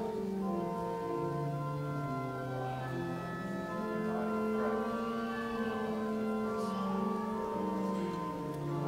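Church organ playing slow instrumental music in long held chords that change every second or two.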